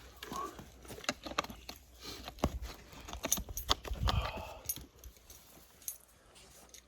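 Metal hose fittings and a nozzle being handled and fitted together: a run of irregular clicks and clinks, with a duller knock about four seconds in.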